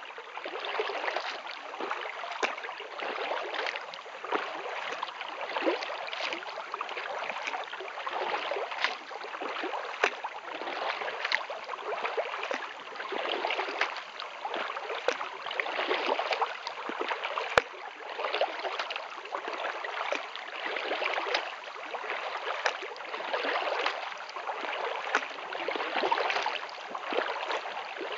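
Lake water splashing and gurgling against a kayak's hull and paddle blades as it is paddled, swelling and easing every second or two with the strokes.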